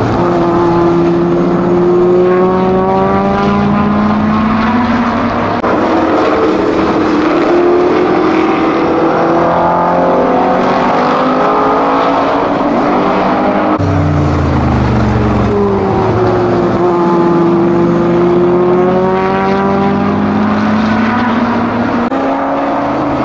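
Racing car engines driven hard, led by the 1970 Dodge Challenger T/A race car's 572 cubic-inch (9.4 L) V8: the engine pitch falls as the cars slow for a bend, then climbs again under acceleration. About halfway through, a deeper-pitched engine abruptly takes over and swings down and back up the same way.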